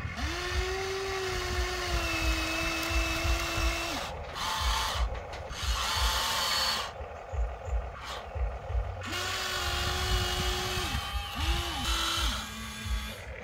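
Huina remote-control toy excavator's electric motors and gearboxes whining as it drives on its tracks and swings. There is a steady whine to about four seconds in, another from about nine to eleven seconds, then a few short blips near the end.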